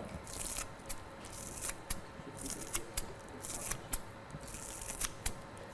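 Fresh dill and parsley being cut: crisp cutting strokes about once a second, with small sharp clicks between them.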